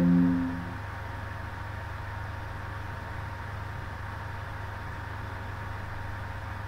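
Steady low hum and hiss of background noise, with a short electronic tone of a few steady notes, under a second long, at the very start.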